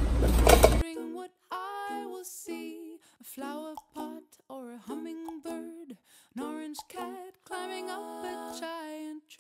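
A brief clatter of bowls being set into a wire shopping cart over loud store noise, cut off suddenly about a second in. Background song follows, a woman singing a melody over light accompaniment.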